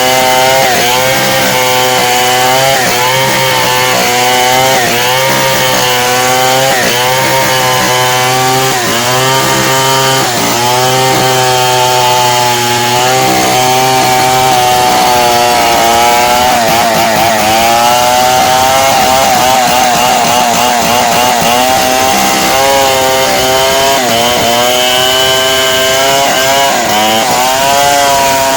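Two-stroke chainsaw running at high revs while ripping through timber to cut beams and planks. Its pitch dips repeatedly as the chain bogs under load in the cut, then recovers.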